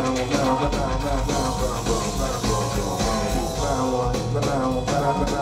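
Loud live rap music through a concert sound system: the song's beat, with heavy bass and regular drum hits, between rapped lines.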